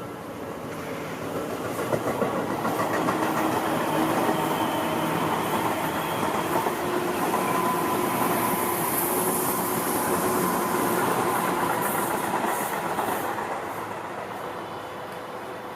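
Tobu Tojo Line electric train passing on the embankment, its wheels clattering over the rail joints. The sound builds over the first couple of seconds, stays loud, and fades away near the end.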